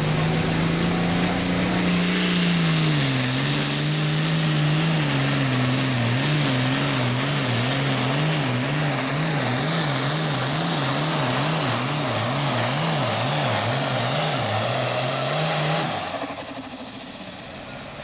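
Turbocharged International Harvester diesel pulling tractor at full throttle under load, dragging a weight sled, with a high turbo whistle that climbs sharply about two seconds in. The engine's pitch dips after about three seconds and then wavers rapidly up and down, about twice a second. Near the end it is cut back suddenly and the sound falls away as the pull ends.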